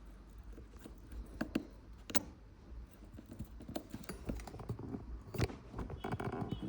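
Irregular small clicks and taps of tools and phone parts being handled on a workbench during phone reassembly.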